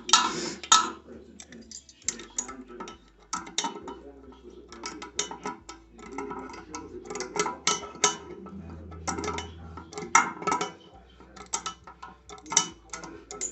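Small metallic clicks and clinks in short, irregular runs as nuts and washers are tightened down onto a toilet's closet bolts.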